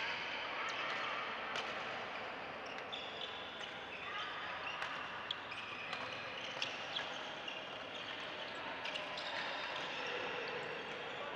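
Badminton play on a wooden court floor: sharp racket hits on the shuttlecock at irregular intervals, and short high squeaks of court shoes, over a steady hall hubbub of distant voices.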